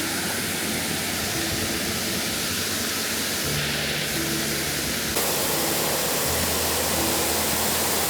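Steady rushing roar of a waterfall. About five seconds in it cuts to a brighter, slightly louder roar. Faint background music runs underneath.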